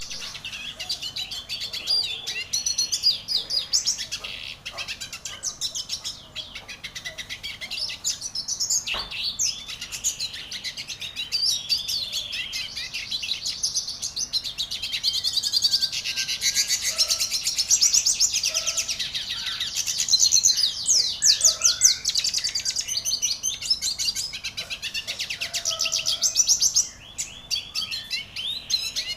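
A songbird singing on and on in rapid, high chirps and trills, with a brief pause near the end.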